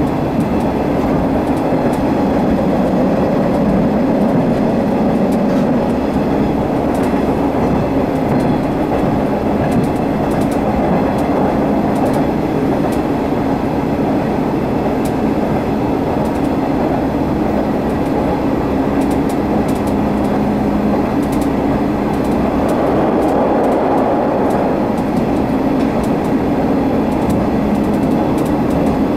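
Sanriku Railway diesel railcar running steadily, heard from inside the car: a constant engine and running drone with wheels on the rails and faint clicks from the track.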